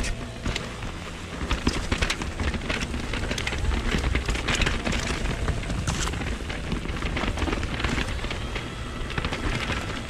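Vitus Sommet VR mountain bike descending a rocky trail, heard from the onboard camera: tyres clattering over stones and roots and the bike rattling in dense irregular clicks, over a steady rumble of wind on the microphone.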